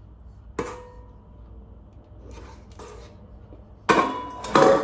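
A utensil knocking and scraping against a mixing bowl while brownie batter is scooped into a baking tin: one ringing knock about half a second in, soft scraping, then two loud clattering knocks near the end.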